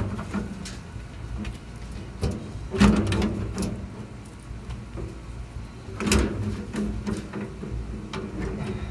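Metal clanks and scrapes as a rusted, perforated steel charcoal pan is worked loose and lifted out of a charcoal grill, with the loudest knocks about three seconds and six seconds in.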